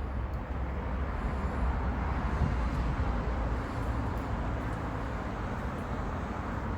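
Kärcher K7 pressure washer running, its water jet spraying on patio paving: a steady rushing hiss over a low hum.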